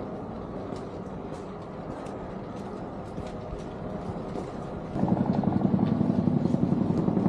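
A steady low rumble, then about five seconds in a helicopter comes in much louder, its rotor beating in a fast, even pulse.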